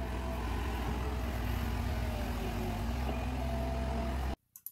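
Caterpillar excavator's diesel engine running steadily under work, a deep even drone, which cuts off suddenly a little before the end.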